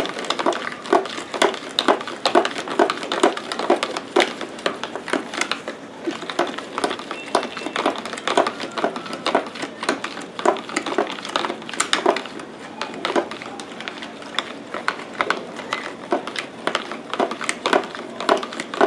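Spoon stirring sugar into water in a plastic pitcher, scraping and clicking against the sides and bottom several times a second as the sugar dissolves.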